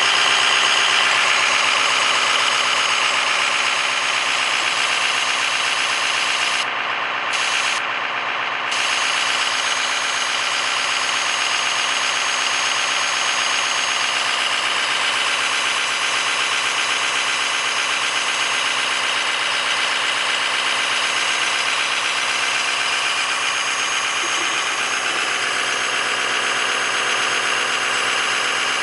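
Ford F-350's 6.0L Power Stroke V8 turbodiesel idling steadily, with the fast, even pulsing of an exhaust leak at the catalytic converter flange.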